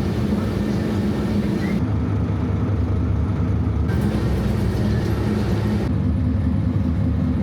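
A motor vehicle's engine runs steadily with a low drone. The higher hiss over it changes abruptly about two, four and six seconds in.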